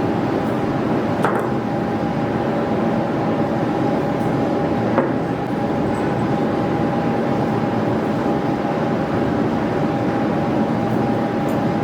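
Steady machine hum with a faint steady whine running underneath. A few faint sharp clicks, about a second in and about five seconds in, fit pliers working stainless steel orthodontic wire as it is bent to the palate.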